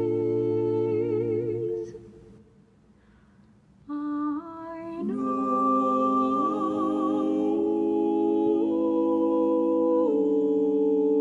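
A cappella vocal ensemble holding a chord with vibrato that dies away about two seconds in. After a short silence the voices enter again and build into a loud held chord, whose notes move to new pitches a few times.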